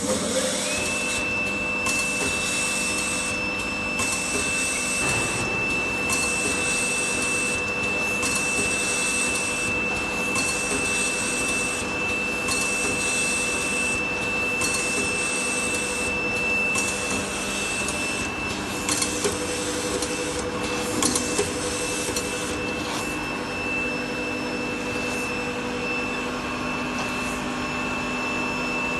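Automatic bag-grabbing and labeling machine running: a steady high-pitched whine over a lower hum, with a hiss that comes and goes about every two seconds through the first half. A few sharp clicks sound about two-thirds of the way through.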